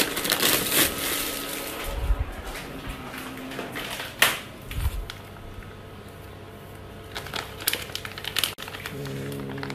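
Thin plastic bags and a plastic food packet rustling and crinkling as they are handled, with a sharp click about four seconds in.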